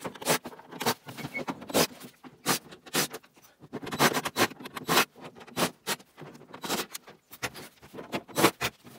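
Cordless drill-driver backing screws out of a CRT television's plastic back cover, mixed with irregular knocks and scrapes of the plastic casing being handled.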